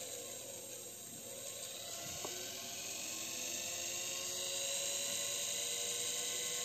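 Washing-machine universal motor running on 12 V DC, its brushed whine dipping in pitch about a second in, then climbing again and holding steady. A single click about two seconds in.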